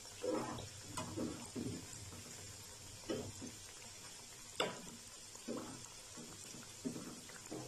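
Semolina pakoras frying in hot oil with a faint sizzle, while a perforated slotted spoon turns them over, scraping and knocking against the pan every second or so. The sharpest knock comes a little past halfway.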